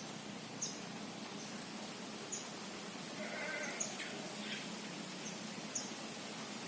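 A short wavering animal call, about a second long, around three seconds in, over a steady background hiss with scattered sharp high ticks.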